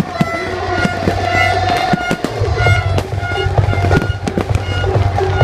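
Fireworks display with aerial shells bursting in quick succession, many sharp bangs over a continuous low rumble.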